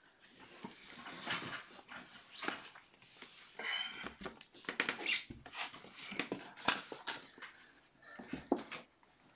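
Kittens with cerebellar hypoplasia moving about on floor mats and toys: scattered rustles and light taps. A short high squeak comes a few seconds in.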